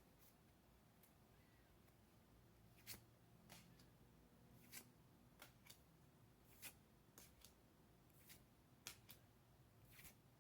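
Faint, crisp flicks and slides of Pokémon trading cards being handled one at a time, about a dozen at irregular intervals, over near silence.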